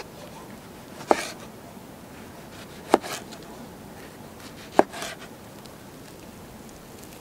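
Knife cutting tomatoes on a wooden cutting board: three sharp knocks of the blade on the board, about two seconds apart.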